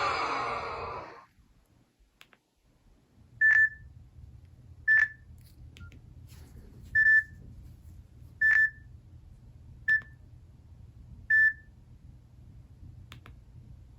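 A Nokia N71 flip phone's loudspeaker playing its built-in tones: a fuller, busier tone cuts off about a second in, then after a short pause a high single-pitched beep sounds six times, about one and a half seconds apart.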